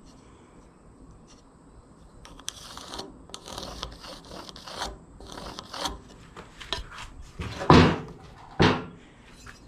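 Handling of a wooden 4x4 and a metal speed square: light clicks, taps and short scrapes, then two louder knocks a little under a second apart near the end.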